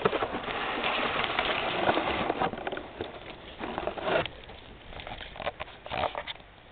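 Dead dry grass burning, a dense crackle for the first two seconds or so that thins out to scattered pops and snaps as it gets quieter.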